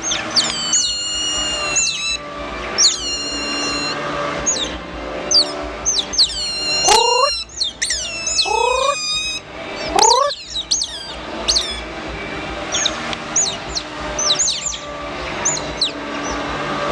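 Otters calling with rapid, high-pitched chirps and squeaks, many short falling calls and a few lower rising squeals, over faint background music.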